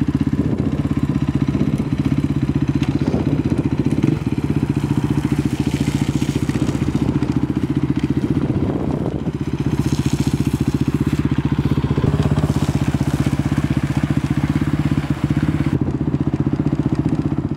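Single-cylinder four-stroke engine of a 2015 KTM 450 EXC Six Days supermoto running at an even low speed, its pitch holding steady with no revving.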